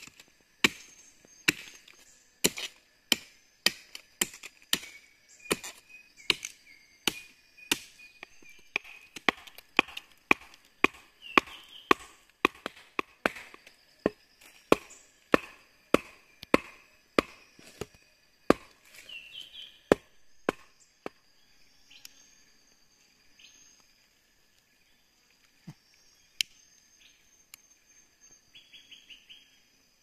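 Wood being chopped with quick sharp strikes, about two to three a second, for some twenty seconds, then stopping: firewood being cut to boil water. Behind it and after it runs a steady chirring of forest insects, with a short fast rattling call near the end.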